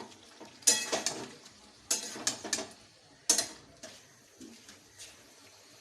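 A metal spoon knocking and scraping against a cooking pan while a curry is stirred: a sharp clatter about a second in, a quick cluster of clinks a second later, and one more knock after that, with little sizzling.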